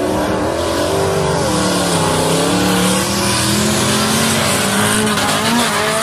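Several stock cars racing on a dirt track, their engines revving, the pitch rising and falling as they accelerate and ease off.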